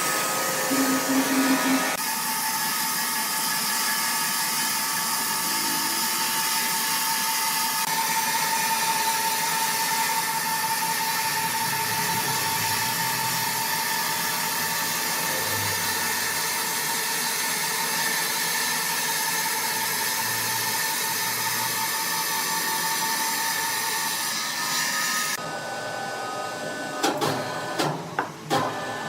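Sawmill woodworking machinery running with a steady high whine over a hiss. The sound changes abruptly about two seconds in, then turns to scattered knocks and clatter near the end.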